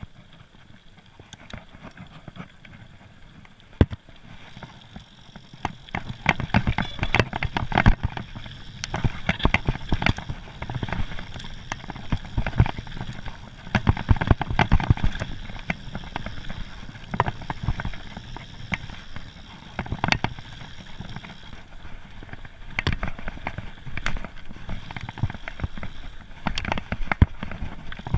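Mountain bike riding down a dirt and rock singletrack: tyres crunching over the ground with constant rattling and knocking from the bike as it hits bumps. It is quieter for the first few seconds on the gravel road, then busier and louder from about five seconds in.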